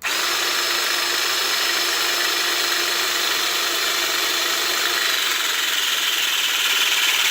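Zupper EZ400 18-volt cordless hydraulic lug crimper running its motor-driven pump through a crimp cycle for about seven seconds. It starts and stops suddenly, and its note shifts about five seconds in, growing slightly louder toward the end as the 12-ton crimp is pressed home.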